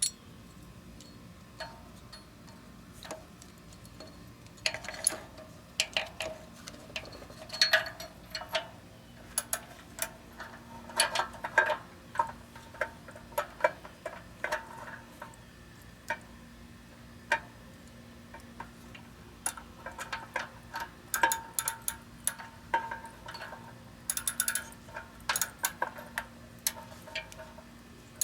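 Ratchet wrench with a slotted oxygen-sensor socket clicking in short runs, mixed with metal clinks of the tool, as a new oxygen sensor is worked into the exhaust manifold.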